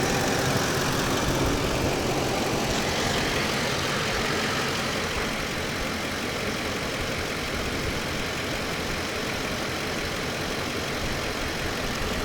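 Ford E-series van engine idling steadily just after a hard cold start, which the owner suspects was caused by the fuel pump relay or the inertia switch. The sound eases a little over the first few seconds and then holds even.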